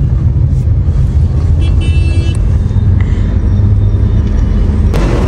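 Steady low rumble of a moving road vehicle heard from inside it, with a brief high-pitched tone about two seconds in.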